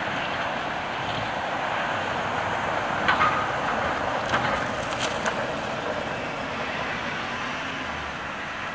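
Steady hum of city road traffic, with a few brief sharp clicks or chirps around the middle.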